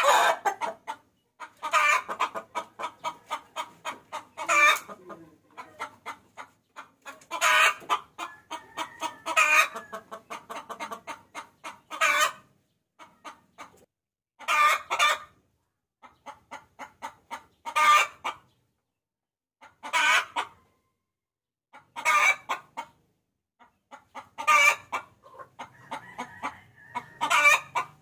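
Hen cackling: runs of quick clucks that build to a loud squawking note, repeated over and over every two to three seconds. The hen's call to a rooster, used as a lure call.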